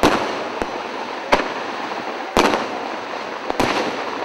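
Aerial fireworks shells bursting: four loud bangs roughly a second apart, with smaller pops between and a steady crackling noise throughout.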